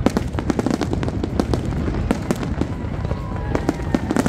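Fireworks display: a dense barrage of aerial shells bursting, with many sharp bangs in quick succession over a continuous low rumble.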